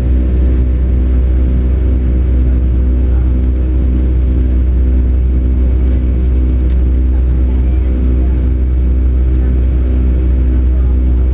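Boeing 757-200 jet engine noise heard inside the passenger cabin: a steady, loud low hum with a stack of humming tones, one of which throbs about twice a second.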